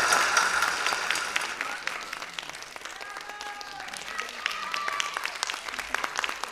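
Audience applauding, the clapping fading away as the dancers leave the stage.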